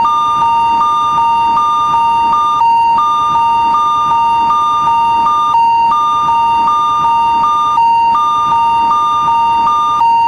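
Japanese railroad crossing (fumikiri) electronic alarm: two high tones sounding together, one held steady and the other repeating in short pulses, with a brief break every few seconds.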